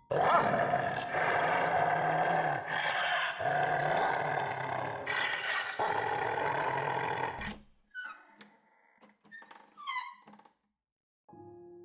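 Loud, harsh dog-like growling that cuts off suddenly about seven and a half seconds in. A few faint, high chirping glides follow, and near the end a steady low tone starts.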